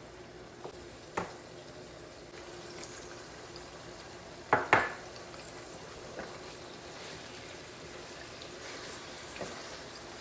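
A metal spoon or utensil knocking and clinking against a cooking pot, a few light taps and two loud knocks close together about four and a half seconds in, over a steady low hiss from the pot.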